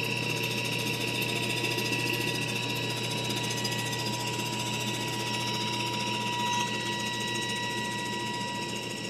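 Cystic fibrosis breathing-treatment machine running while medicine is inhaled through its handheld mouthpiece: a steady mechanical hum with thin constant tones over it.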